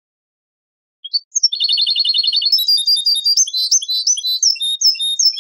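European goldfinch song from an old Moroccan 'Ceuta-style' tutor recording: a few high notes about a second in, then a fast even trill of about ten notes a second, then a varied run of quick twittering notes.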